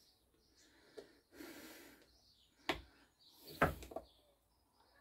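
A metal pick clicks and scrapes faintly against a two-stroke piston's gudgeon-pin circlip, which is wedged fast in its groove. There is a sharp click about a second in and another a little past halfway, with two soft breathy hisses between them.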